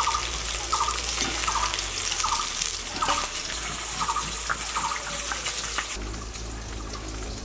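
Rohu fish pieces sizzling in hot mustard oil in a wok, a steady hiss that cuts off about six seconds in, leaving a quieter outdoor background.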